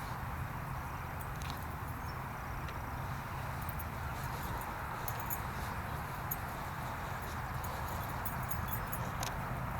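An engine running steadily at a low pitch, with scattered light clicks and rattles.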